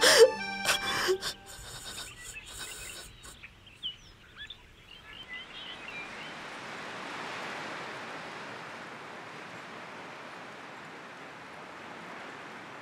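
Outdoor ambience: a music cue ends at the start, a few faint bird chirps follow, and from about five seconds in a steady rushing noise takes over.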